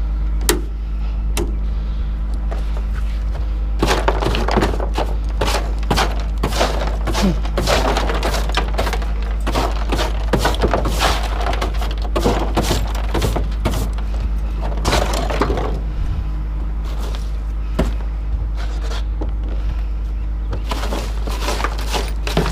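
Broom sweeping leftover scrap debris out of a truck bed: repeated scraping strokes with small pieces clattering, over a steady low hum.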